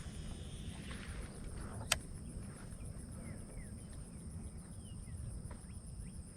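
Insects trilling steadily in a high pitch, with faint short bird chirps and a low wind rumble; a single sharp click sounds about two seconds in.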